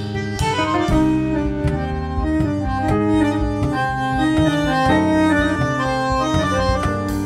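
Instrumental background music: a melody of held notes over sustained chords, changing pitch every half second or so.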